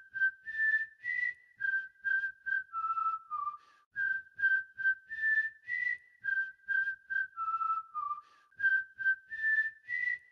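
A bright whistled melody over a light beat, a short phrase of quick notes that steps up and then down, repeating about every four seconds: a theme tune.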